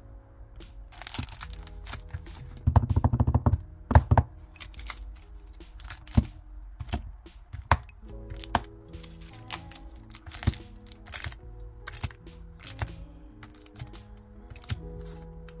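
Clear plastic sleeves of stickers and memo pads crinkling, with sharp taps and clicks as they are handled and set down one by one, over soft background music. There is a denser stretch of crinkling about three seconds in, and a loud snap just after.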